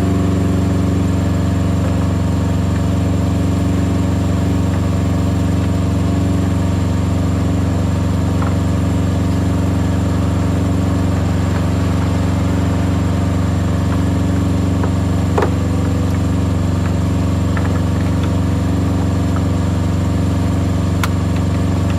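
Semi-truck diesel engine idling steadily, a constant low hum, with a few small clicks of parts being handled.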